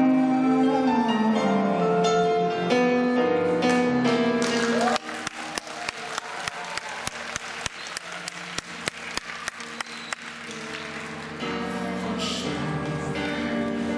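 Male voice singing a slow pop ballad over a digital piano. About five seconds in the voice stops, and for roughly five seconds an audience claps along in time, about three claps a second, over soft piano; the singing returns near the end.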